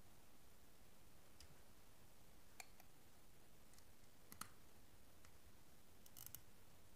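Faint scattered clicks and taps of a small screwdriver and wire ends on the brass terminal screws of a plastic switch board, over near silence. About half a dozen clicks, the sharpest a little past four seconds in and a quick rattle near the end.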